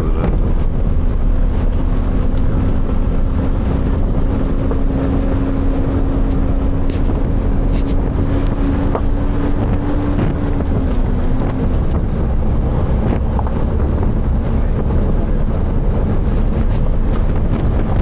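Wind buffeting the microphone over a steady low rumble, with a humming tone that rises slightly in pitch and fades out about eleven seconds in.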